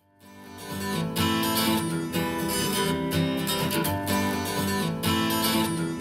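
Strummed acoustic guitar intro of a song, played back through a pair of iLoud Micro Monitor compact powered speakers and picked up by a microphone in front of them. It fades in from silence over about the first second, then holds steady.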